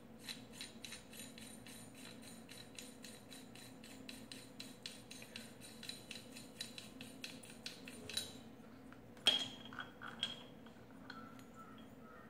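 Removable threaded heat sink being unscrewed from an H4 LED headlight bulb: a fast, even run of light ticks, about four or five a second, as it is turned, then two louder clacks about a second apart.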